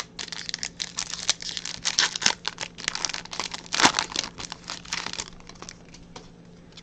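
Foil wrapper of a trading card pack crinkling and tearing as it is opened: a dense run of crackles for about five seconds that dies away a little before the end.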